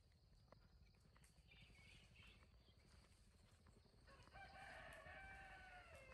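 Faint rooster crow: one long call starting about four seconds in, its pitch dropping at the end, with a fainter call earlier.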